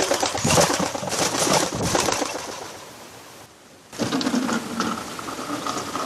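Wood pigeon flapping its wings hard as it takes off from a bird bath, a dense clattering with splashing that fades after about two and a half seconds. About four seconds in, a different, steadier rustling noise with a faint hum starts.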